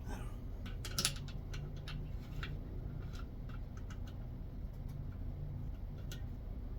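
Irregular light clicks and taps of hand tools and engine parts being handled, the loudest about a second in, over a steady low hum.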